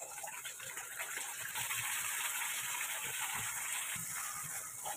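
Wet ground masala paste hitting hot oil in a kadhai and sizzling with a steady hiss that swells in the middle, while a spatula stirs it through the pan.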